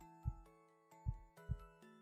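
Human heartbeat heard close up through the chest: deep, slow lub-dub thumps in pairs, about one beat every 1.2 seconds. A soft melody of held, bell-like notes plays underneath.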